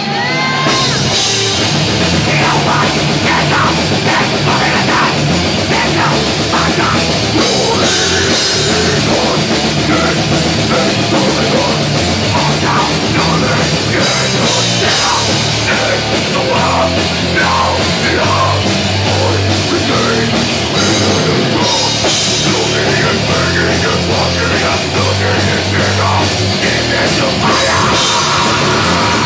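Thrash/death metal band playing live, with electric guitars and a drum kit, loud and continuous.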